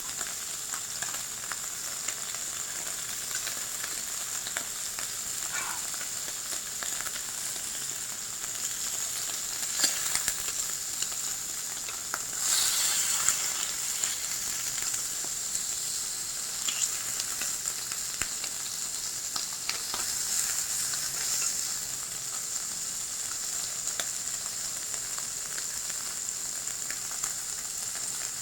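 Japanese A5 Wagyu beef sizzling on a hot iron plate: a steady high hiss of searing fat with scattered pops, and a brief louder surge of sizzling a little before halfway.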